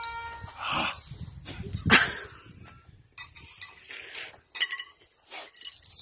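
A dog barking several times, the loudest bark about two seconds in, with scattered clicks and knocks between the barks.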